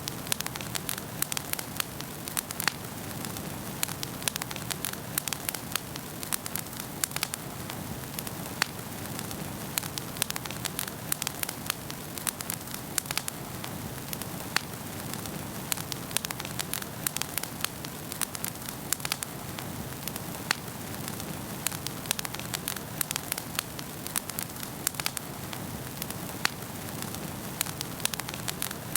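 Wood fire burning in a fireplace: frequent sharp, irregular crackles and pops over a steady low hiss of the flames.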